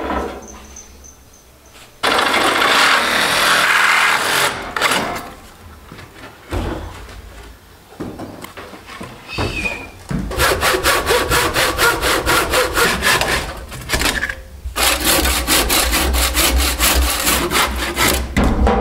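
Handsaw cutting through timber in quick, even strokes, about three or four a second, in two long runs with a short break between them in the second half. Earlier comes a few seconds of loud rough rubbing.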